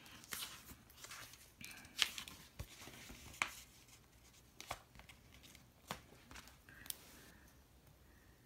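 Hands handling thin paper glitter sticker headers and the planner page: a run of about eight faint, sharp clicks and short peeling and crinkling sounds, unevenly spaced.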